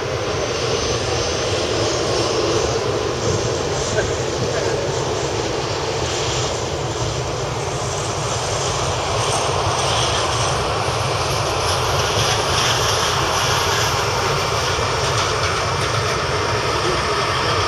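Boeing 747-400 jet engines running steadily at low taxi power as the four-engined jumbo jet rolls along the taxiway.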